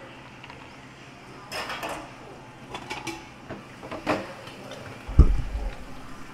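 Coffee poured over ice in glass tumblers, with ice and glass clinking: a short pouring splash, then several sharp clinks, and a heavy low thump about five seconds in.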